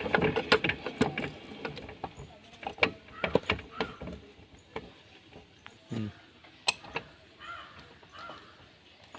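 Metal clicks and clanks of hand tools and parts as a Honda Dio scooter's drum brake and wheel are put back together. They come quickly in the first two seconds and more sparsely after, with one duller knock about six seconds in.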